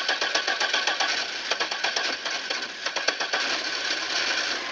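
Safari van engine being cranked over by its starter in a cold no-start, a fast even chugging that fades out about three and a half seconds in.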